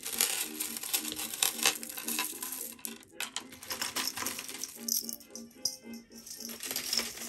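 Bead necklaces clattering and rattling against each other and a glass shelf as they are gathered up by hand, many quick clicks, over soft background music.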